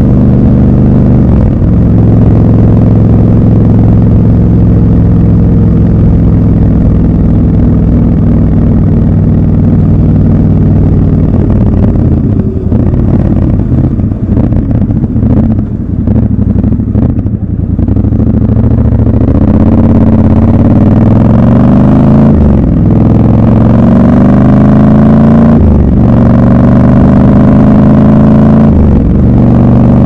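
Triumph Scrambler 1200 XC's parallel-twin engine, heard from the rider's seat. It runs steadily at cruise, drops back to low revs for several seconds in the middle, then pulls up through the gears with a rising pitch that drops back at three shifts near the end.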